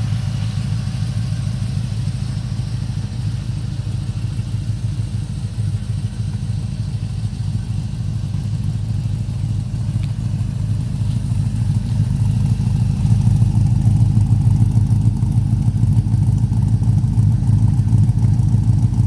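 Chevrolet 6.0-litre V8 with a BTR Stage 3 truck cam idling steadily through headers and a MagnaFlow exhaust. The exhaust note gets louder about two-thirds of the way through.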